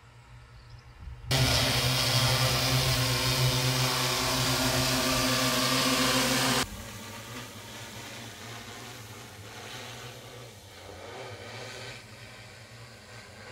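Large multirotor agricultural drone's propellers humming loudly at a steady buzzing pitch as it hovers close overhead, cutting in abruptly about a second in and cutting out after about five seconds; after that its hum is much fainter, as it flies farther off.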